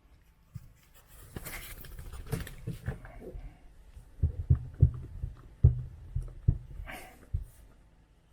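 A freshly bathed, wet small dog moving about, with rustling and a series of low thumps.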